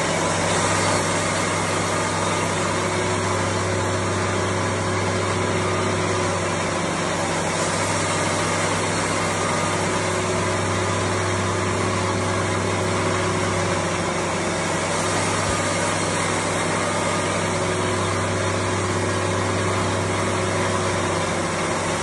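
Wood-Mizer LT70 band sawmill running steadily, its band blade slicing a cookie off an upright deodar cedar log held in a Cookie-Mizer attachment. The machine drone holds at an even level throughout.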